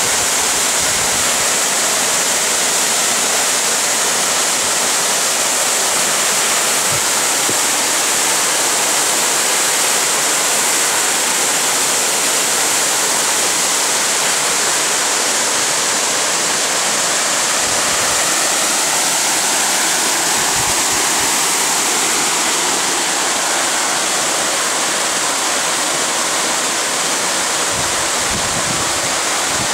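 Mountain waterfall pouring steadily: a loud, unbroken rush of falling water, with a few soft low bumps in the second half.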